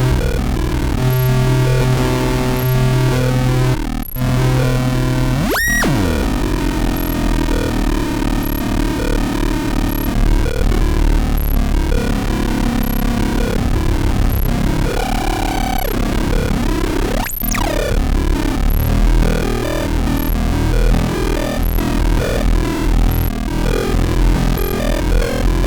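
Live electronic noise music: a dense, loud mass of synthesized tones and noise. A low droning note stops about five seconds in, two fast upward pitch sweeps cut through, one near the start and one about two-thirds of the way in, and a faint high tick repeats about every second and a half.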